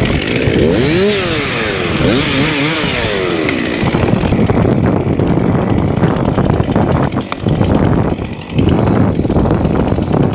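Two-stroke chainsaw running, its engine revved up and down several times in the first few seconds, then running steadily, with a brief drop in level near the end.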